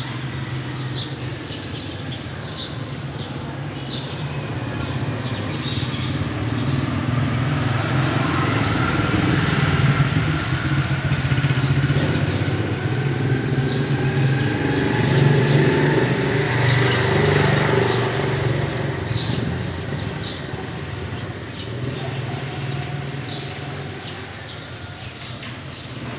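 Vehicle engine running nearby: a steady low drone that grows louder through the middle and eases off near the end, with a slow rising whine over it.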